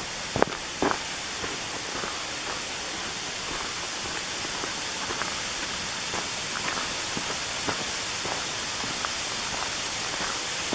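Steady rushing of a waterfall and creek, with footsteps crunching on a gravel trail throughout; two louder steps fall within the first second.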